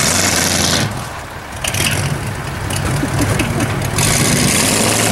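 Vehicle engines running with road noise, heard from inside a moving car, with a steady low hum under three surges of rushing hiss.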